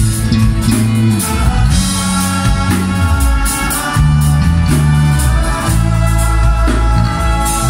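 A live band playing loudly: a walking bass line on bass guitar with steady drum beats, electric and acoustic guitars, and sustained accordion chords.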